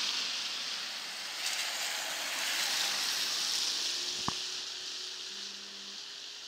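Passing traffic on a wet, slushy road: tyres hissing through the slush, loudest near the start and again about three seconds in, fading away toward the end. A single short click about four seconds in.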